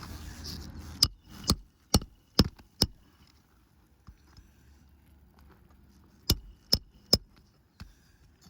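Hammer nailing a new asphalt shingle onto the roof: five sharp strikes about two a second, a pause, then three more strikes near the end.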